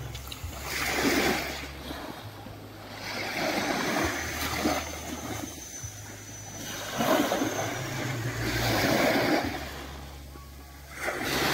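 Sea waves breaking and washing onto the shore, swelling and falling away every few seconds, with a low rumble underneath.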